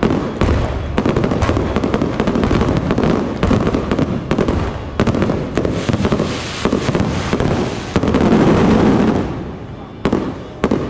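Fireworks going off in a rapid barrage: shells launching and bursting amid dense crackling and popping. The noise builds to its loudest about eight to nine seconds in, then thins out near the end.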